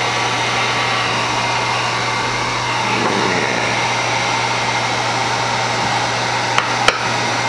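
Handheld electric heat gun blowing steadily over freshly poured epoxy resin to warm it and make it flow, its fan motor giving a constant whoosh with a low hum. Two sharp clicks come close together near the end.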